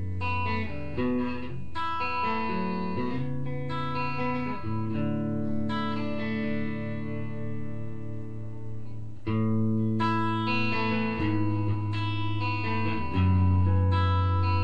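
Guitar music: plucked notes and chords ringing out and sustaining, changing every second or few seconds, with louder chords struck about nine and thirteen seconds in.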